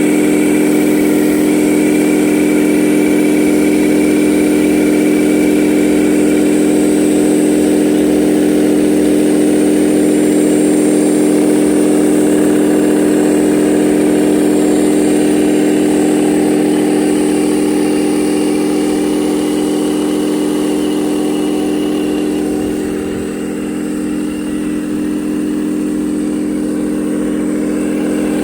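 Radio-controlled hydraulic construction model running steadily with an engine-like hum. The hum holds a constant pitch, eases off a little after about 17 seconds, dips briefly about 23 seconds in, then comes back up.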